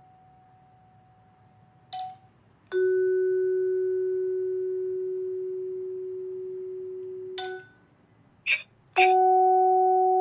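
Vibraphone struck with yarn mallets. A higher note is damped about two seconds in; a lower note then rings out steadily for about five seconds and fades slowly before it is damped with a click. After a short sharp click, two notes about an octave apart are struck together near the end and ring on.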